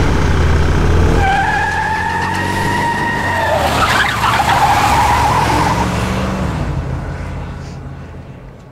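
A car's engine running hard as it speeds away, with its tires squealing in two long screeches; the sound then fades steadily as the car gets farther off.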